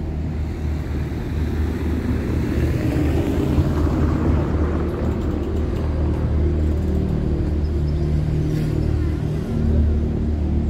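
A motor engine running steadily at a low pitch, with a rush that swells and fades about three to four seconds in, as of something passing by.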